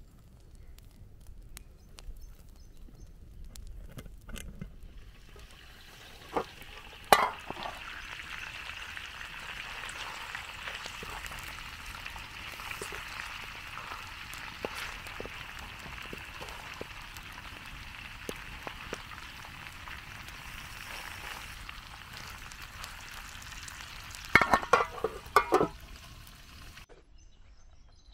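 Whole split chickens frying in hot oil in a wide metal pan over a wood fire, with a steady sizzle that starts about five seconds in and cuts off just before the end. A few sharp metal clinks come through it, a loud one about seven seconds in and a quick cluster near the end.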